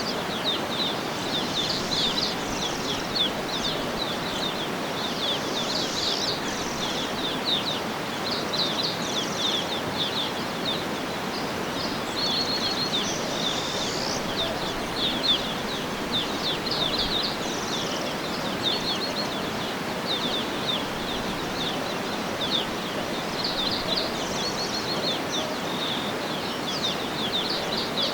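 Many birds chirping and trilling continuously in quick, high notes over a steady rushing background noise.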